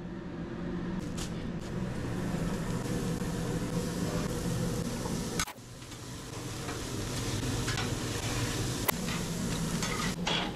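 Lamb chunks sizzling on a grill over open flame, over a steady rushing hum of kitchen noise, with a few sharp clicks.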